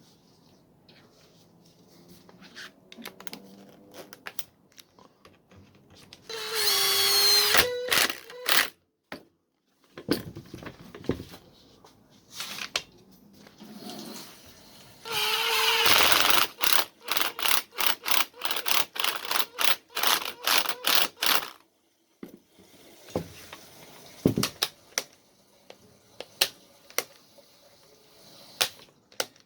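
A 2 kW large angle grinder's motor spinning up for a second or two, twice, then switched on and off in quick short bursts, about three a second, for several seconds as its repaired sticky trigger switch is tested. Scattered clicks and knocks of the tool being handled in between.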